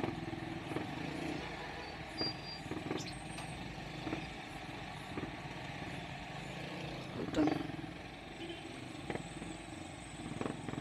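Small motorcycle riding slowly through city traffic, its engine running low under steady road and traffic noise, with one brief louder thump about seven seconds in.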